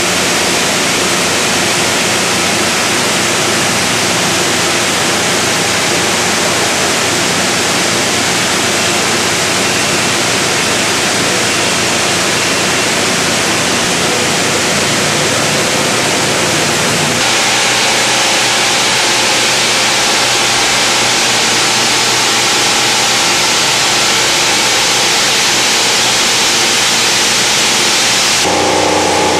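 Plastic recycling and pelletizing line machinery running: a loud, even rushing noise with a few steady hum tones. The sound changes abruptly about two-thirds of the way in and again near the end, as different machines of the line are heard.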